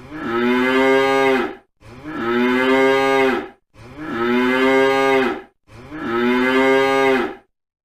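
Cow mooing: four alike long moos in even succession, each about one and a half seconds, with a short pause between them.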